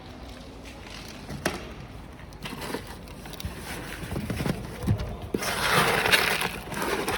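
Roasted coffee beans clattering in scattered small clicks as they are handled and mixed, then a dense, steady rattling rush from about five seconds in as they pour.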